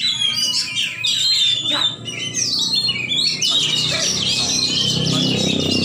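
Oriental magpie-robins (kacer) singing over one another in dense, fast chirps and whistled phrases, with a low hum underneath in the second half.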